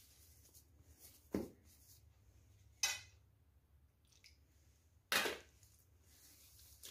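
Three short clinks and knocks of steel kitchenware, a small steel bowl against a stainless steel plate, spread a second or two apart, with faint rustling of hands working crumbly dough in the plate between them.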